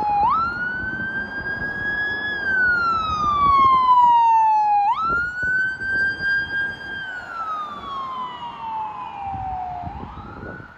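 Ambulance siren on a slow wail, rising sharply in pitch, climbing a little more, then falling away slowly, about every five seconds, over a low vehicle rumble. It grows fainter near the end as a new cycle begins.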